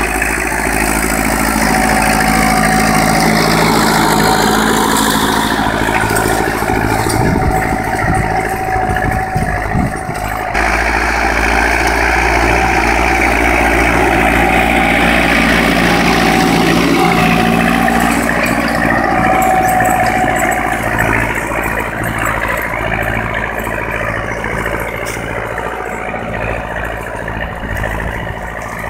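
IMT 558 tractor's diesel engine running steadily under load, pulling a tillage implement through ploughed soil. It fades somewhat toward the end as the tractor drives away.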